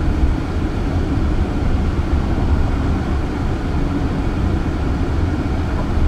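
Steady low road and tyre rumble inside the cabin of a moving Waymo Jaguar I-Pace, an electric car with no engine note.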